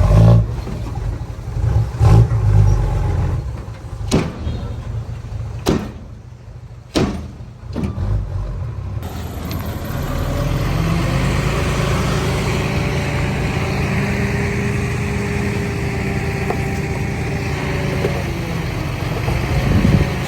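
Heavy diesel earthmoving machine engine running, with several sharp knocks in the first half, then a steady drone whose pitch rises a little and falls back.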